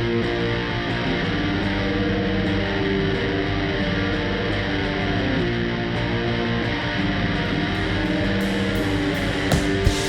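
Live rock band playing: loud electric guitar holding sustained, ringing chords, with sharp hits coming in just before the end.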